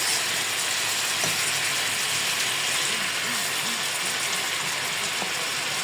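Chicken leg quarters sizzling steadily in hot fat in a pot as they brown.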